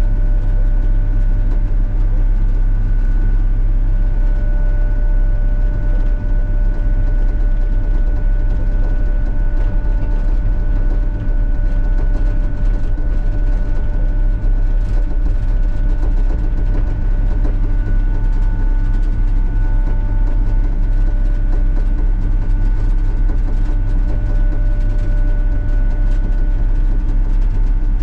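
Sany SY35U mini excavator's diesel engine running steadily under work, a low drone with a steady high whine over it.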